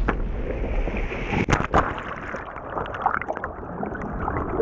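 Churning water heard underwater: a muffled rush with bubbling clicks and pops, and a few louder knocks about a second and a half in.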